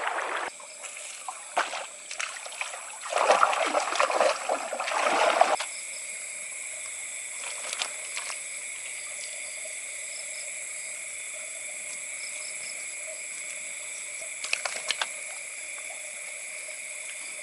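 Night insects droning steadily at several high pitches, with faint pulsed chirps. A rush of water-like noise with a few sharp clicks comes about three seconds in and lasts a couple of seconds.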